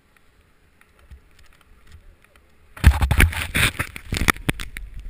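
After near quiet, about three seconds in, loud scraping and crunching in snow close up, with a run of knocks and low rumble on the camera's microphone: a jack jumper rider tipping over or sliding on the snow.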